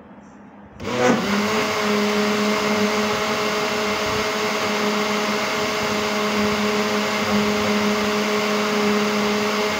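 Electric blender-juicer switched on about a second in. Its motor winds up quickly to a loud, steady high-speed whine as it blends chopped apples with milk and yogurt, then starts to wind down at the very end.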